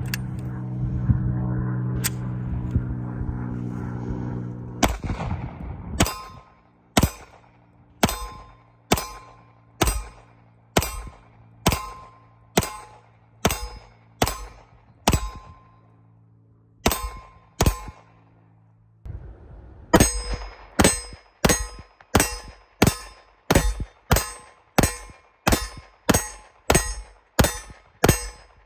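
Browning BDM 9 mm pistol fired in its double-action-only revolver mode, shot after shot at about one a second. A short pause comes about two-thirds of the way in, then a faster string. Each shot is followed by a metallic ring, the sound of bullets striking a steel target.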